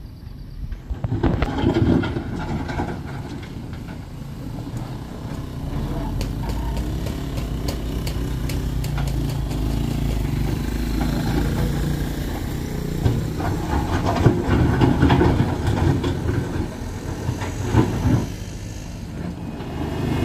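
Diesel engine of a JCB wheel loader working as it pushes and spreads a pile of soil, with a motorcycle passing about halfway through.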